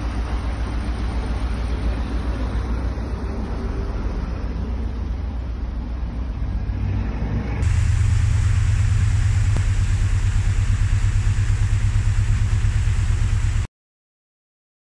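Narrowboat engine running at tick-over in a filling lock, a low steady rumble under the rush of water pouring in through the lock paddles. About halfway through the sound jumps to a louder, closer engine with an even pulsing beat, then drops out to silence for a moment near the end.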